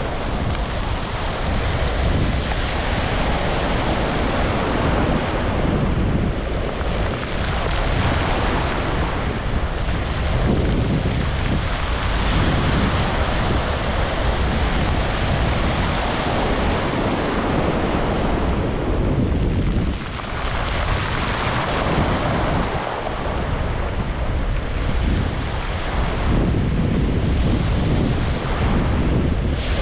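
Ocean surf: waves breaking and washing on a beach in a continuous rush that swells and eases every few seconds, with a brief lull about twenty seconds in. Wind buffets the microphone with a low rumble throughout.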